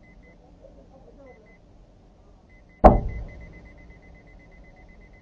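A single loud crash of a vehicle collision about three seconds in, ringing out over about a second. A high electronic beep sounds in short pairs at first, then repeats rapidly and steadily from just before the impact onward.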